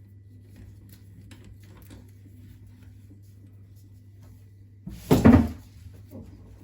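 Faint light ticks from a bicycle wheel and frame being handled, then a loud short clatter about five seconds in and a softer knock a second later.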